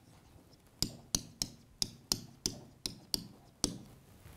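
Marker tip tapping and clicking against a hard board while words are written by hand: about nine short, sharp taps at roughly three a second.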